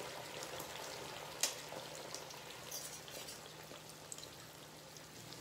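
Batter-coated naan shallow-frying in hot oil in a nonstick pan: a steady soft sizzle with scattered small crackles, and one louder click about a second and a half in.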